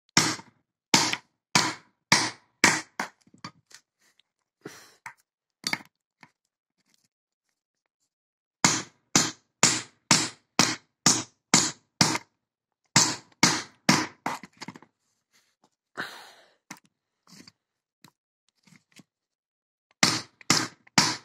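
Sharp blows struck in quick runs, about two to three a second, with short pauses between runs, against a cheap Chinese sintered-iron padlock in a kinetic attack meant to jar its locking mechanism open.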